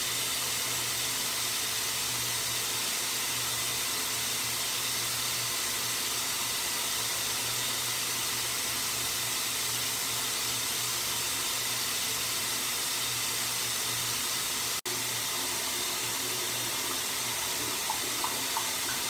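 Water running steadily: a constant hiss with a low hum beneath it, cutting out for an instant about fifteen seconds in.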